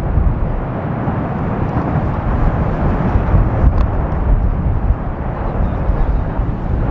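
Fagradalsfjall volcanic eruption heard as a steady, deep rumble, with wind buffeting the microphone.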